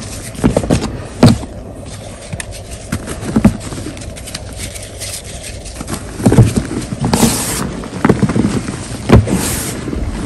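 Hands breaking and crushing blocks of gym chalk in a bed of loose chalk powder: irregular crisp crunches and soft thumps, with two brief powdery hisses about seven and nine seconds in.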